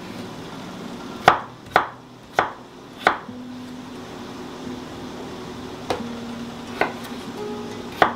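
Kitchen knife chopping peeled potatoes into cubes on a wooden cutting board: seven sharp knocks, four in quick succession in the first few seconds, then three more spaced out near the end.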